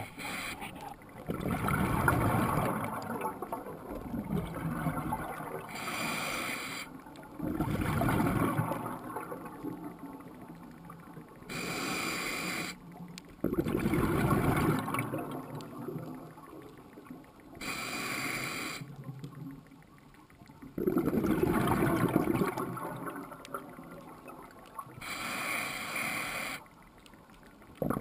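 Scuba diver breathing through a regulator underwater, in a steady cycle about every six seconds: a short hiss on each inhale, then a louder, longer rumble of exhaled bubbles.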